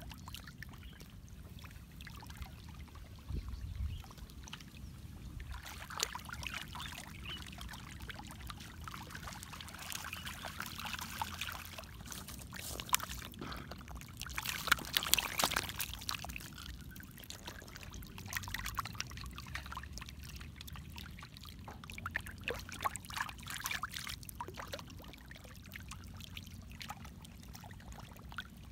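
Fish thrashing and splashing in shallow muddy water, in irregular bursts that are loudest around the middle, over a steady low rumble.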